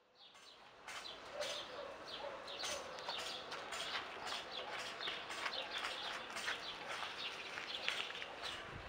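Birds chirping in many short, quick calls, starting about a second in.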